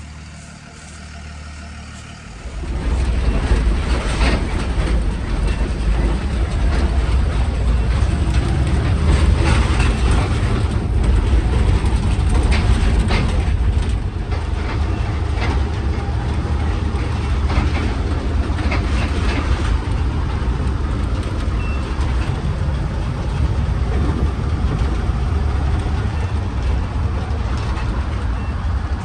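Delivery vehicle on the move: a loud, steady road-and-engine rumble with scattered knocks and rattles, stepping up sharply about two and a half seconds in as it gets going.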